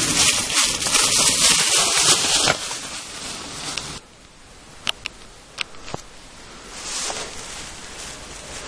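Mountain bike tyres rolling over a trail of dry fallen leaves: a loud, crackly rustling hiss that falls away after about two and a half seconds. After that it is quieter rustling with a few sharp clicks.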